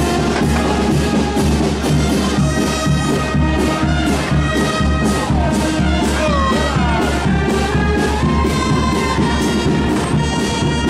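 A brass band playing a procession march, with held brass notes over a steady drum beat of about two strokes a second.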